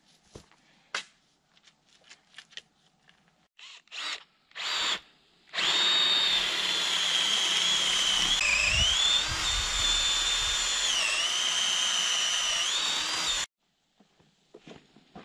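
Electric drill running for about eight seconds, a steady high whine that twice dips in pitch and recovers, then stops abruptly. It follows a few light clicks and knocks of handling.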